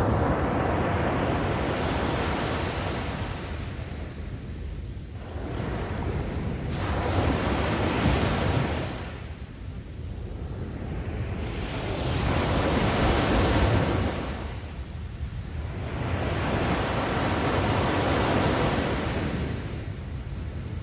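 Sea waves breaking and washing up the shore, one after another, swelling and fading about every five seconds.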